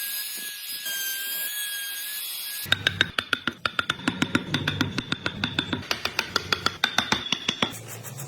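Music: a few steady high tones over hiss, then from about two and a half seconds in a fast, rhythmic run of sharp struck or plucked notes.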